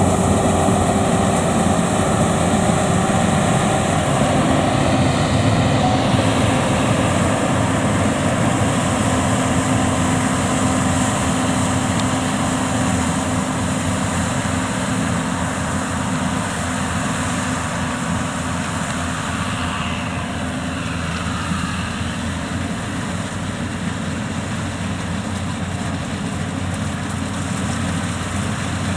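Yanmar grain-tank rice combine harvester running steadily, its engine and machinery a continuous mechanical din that grows slightly quieter through the second half.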